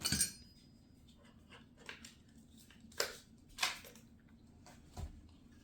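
Small hard items from a power-tool kit, plastic and metal accessories, being handled and set down: a scatter of separate clicks and knocks, the sharpest about three seconds in and a duller knock near the end.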